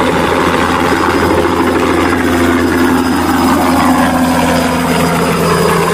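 Bell 206 JetRanger light helicopter lifting off and hovering, its turbine engine and two-bladed main rotor running loud and steady.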